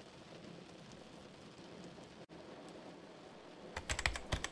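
Faint, steady heavy rain on a car, as a background sound effect. Near the end, fast computer-keyboard typing starts as a quick run of clicks.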